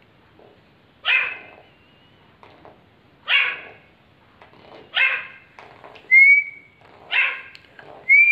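Young male grey francoline giving four harsh calls about two seconds apart. A call whistle sounds twice in the gaps near the end, each a short clean tone that rises slightly and then holds.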